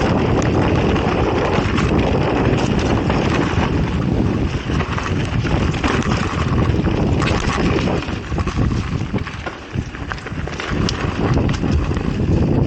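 Mountain bike riding down a dirt trail: wind buffets the action camera's microphone while the tyres roll over the ground and the bike rattles and knocks over bumps. The noise eases briefly about two-thirds of the way through.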